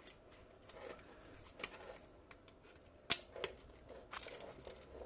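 Handling noise from a radio's circuit board and metal chassis being lifted and turned in gloved hands: scattered light clicks, taps and rubbing, with one sharper click about three seconds in.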